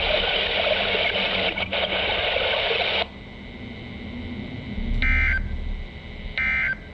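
NOAA Weather Radio receiver: a steady hiss of radio static cuts off about three seconds in. Then come two short warbling digital data bursts about a second and a half apart, the SAME End of Message code that closes the weekly test transmission.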